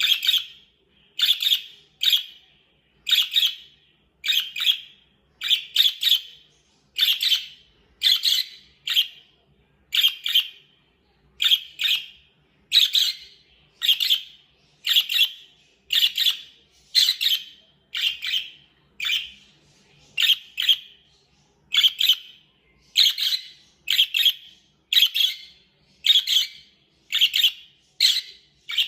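Budgerigar chirping over and over: short, sharp calls about once a second, some coming in quick pairs.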